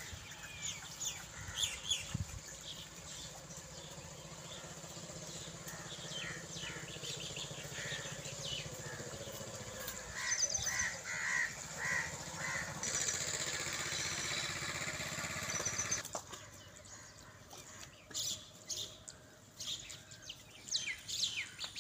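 Birds chirping and calling, many short high calls throughout, with a run of quickly repeated notes about ten seconds in. A steady low hum lies under them until an abrupt change about sixteen seconds in, after which the sound is quieter.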